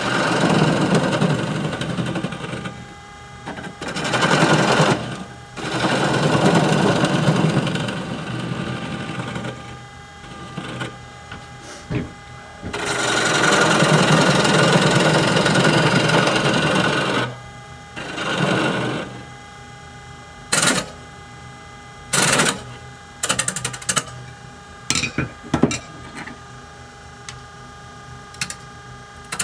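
Wood lathe running while a hand-held turning tool cuts into a spinning oak mortar blank. The wood rasps in long passes of a few seconds each, and the lathe motor hums steadily in between. In the last third the cuts turn into about five quick, short touches.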